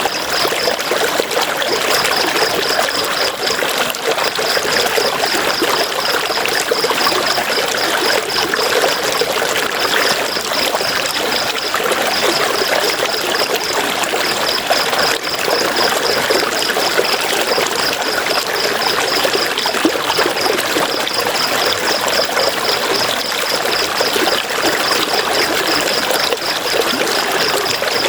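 River water flowing steadily, a continuous rushing and trickling. Over it, a high-pitched rapid chirping comes and goes in runs of one to three seconds.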